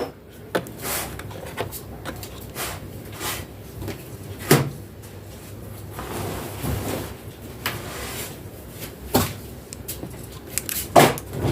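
Scattered sharp clicks and knocks at irregular intervals, a few of them louder, over a low steady background.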